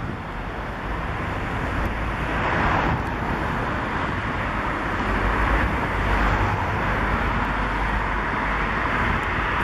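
Road traffic: cars passing on a nearby road, a steady hiss of tyres and engines that swells about two and a half seconds in and again a little past the middle, with a low rumble underneath.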